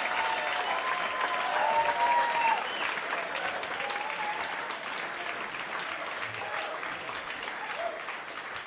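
Concert audience applauding, with a few cheers in the first couple of seconds; the clapping slowly dies down.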